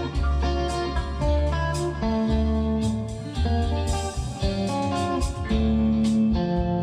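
Background music: a blues-style band track led by guitar, with bass and a steady beat.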